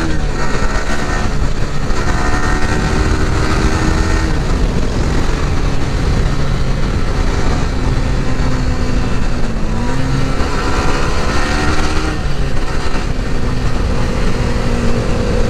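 Motorcycle engine running steadily at cruising revs, its pitch dipping briefly about ten seconds in and rising a little near the end.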